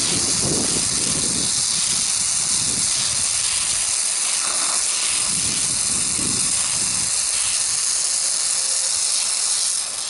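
Oxy-acetylene welding torch flame hissing steadily while it heats a weld puddle on steel. An uneven low rumble comes and goes under the hiss for the first seven seconds or so.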